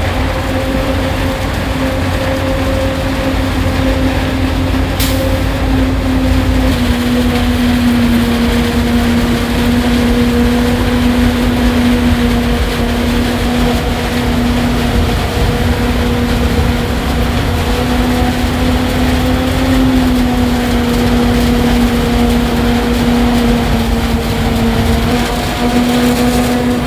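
Heavy harvest machinery running steadily under load, a constant droning whine over a low rumble. The whine drops slightly in pitch about seven seconds in and then holds.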